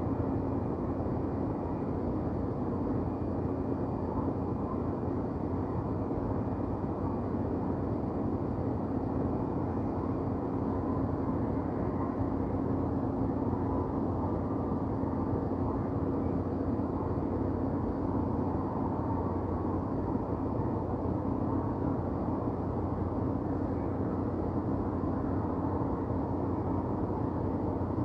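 Steady low rumble of city ambience with a constant hum running through it.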